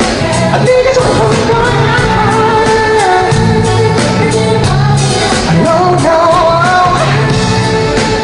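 Loud live pop music on a concert stage: a singing voice carrying a melody over a steady beat.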